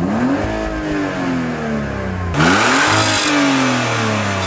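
Car engine revved twice while parked, its exhaust note rising and falling. The second rev, about two and a half seconds in, climbs faster and louder, with a rushing exhaust blast.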